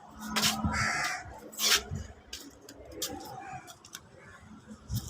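Crows cawing a few times, with a sharp click a little under two seconds in and a low rumble underneath.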